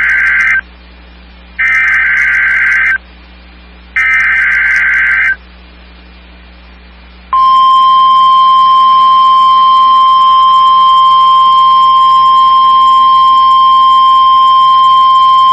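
NOAA Weather Radio emergency alert test tones. First comes the end of one burst of the SAME digital header, a buzzy data screech, followed by two more bursts about a second apart, each about a second and a half long. A couple of seconds later the steady, high 1050 Hz warning alarm tone starts and holds.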